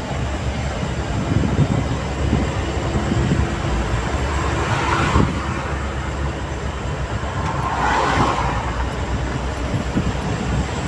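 Inside a truck cab cruising on a highway: the engine drones steadily under tyre and road noise, with two swells of rushing noise about five and eight seconds in.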